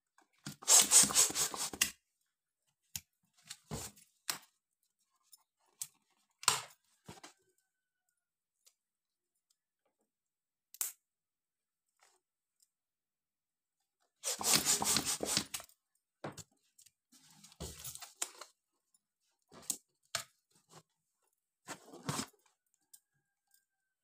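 Small plastic hand pump pushing air into latex balloons in two runs of quick strokes, each about a second and a half, one near the start and one about halfway through. Between them come scattered clicks and small rubbery handling noises as the balloons are handled and knotted.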